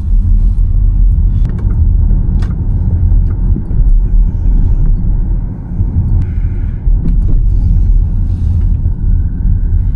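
Škoda Elroq electric car on the move, heard as a steady low rumble of road and tyre noise, with a few short clicks.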